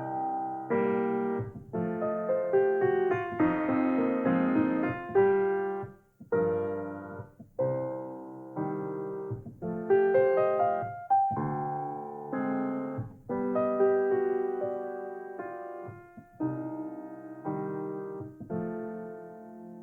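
Solo piano playing a slow blues piece, struck chords and single notes that ring and decay between attacks, the last chord fading out near the end.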